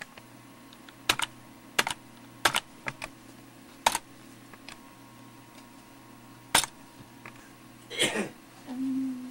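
Slow, scattered keystrokes on a computer keyboard, single sharp clicks with uneven gaps, over a steady low hum. A short rush of noise comes near the end.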